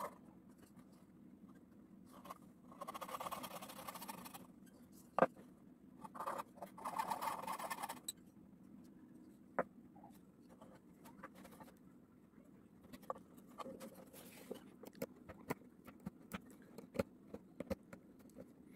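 Coping saw cutting through a wooden ladle handle in two spells of scraping, then a run of small sharp clicks as a knife pares chips of wood out between the saw cuts.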